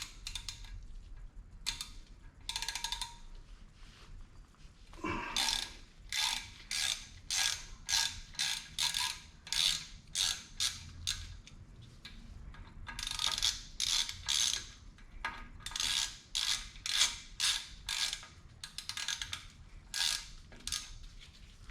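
Ratchet clicking in repeated back-and-forth strokes, about two bursts a second, as it backs out the T30 Torx screw that holds a brake rotor to the hub. A few scattered clicks come first, and the steady strokes begin about five seconds in.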